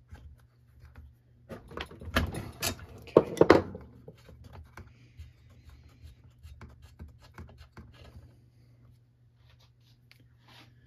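Spark plug being unscrewed from a small two-stroke trimmer engine with a spark plug wrench: metal clicks and scraping, loudest between about 1.5 and 4 seconds in, then scattered lighter clicks as the plug is turned out.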